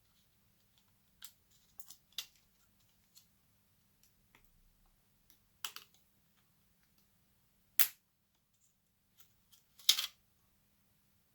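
Scattered small clicks and taps of tools and plastic parts as a Dell G7 17 7790 laptop is taken apart, with two louder sharp clicks about eight and ten seconds in.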